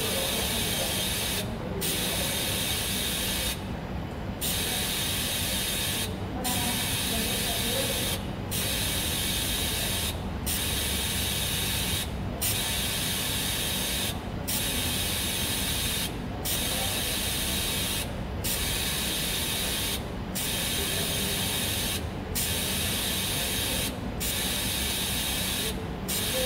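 TIG (gas tungsten arc) welding arc on a 316 stainless steel tube, giving a steady hiss. The hiss dips out briefly about every two seconds.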